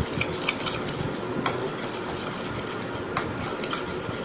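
A metal fork beating thick sour yogurt in a white ceramic bowl, its tines clicking against the bowl in quick irregular ticks, with a couple of sharper clinks.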